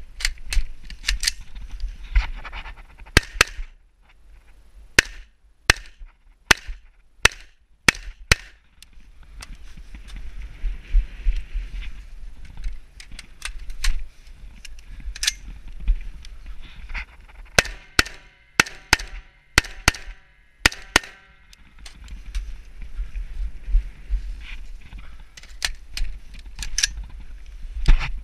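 A string of rifle shots fired at an irregular pace, some in quick pairs, over a steady low rumble. A brief ringing tone sounds among the shots about two-thirds of the way through.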